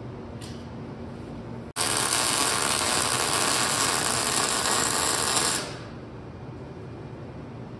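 Welding the threaded tie-rod bungs into the steel steering tube: a steady crackling sizzle that starts abruptly about two seconds in, runs for about four seconds and then dies away, with a quieter steady noise before and after.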